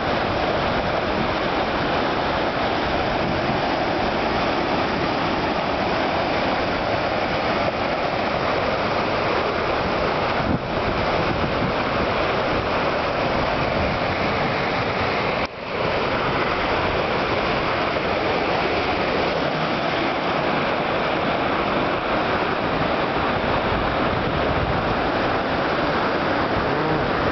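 Large waterfall's water crashing down close by: a loud, steady rush of water noise, with two short dips about ten and fifteen seconds in.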